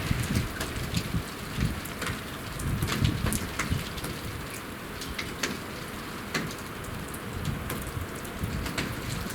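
Rain shower falling, with individual drops tapping sharply close to the microphone. A low gusting rumble is strongest in the first three seconds.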